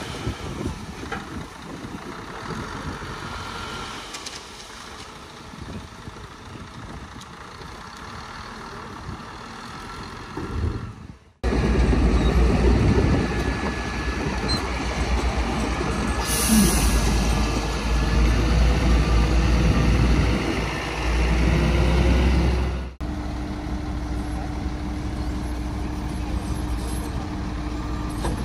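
Heavy diesel engines of dump trucks and a bulldozer running, in three stretches that change abruptly twice, the middle one loudest. A short hiss of air about halfway through.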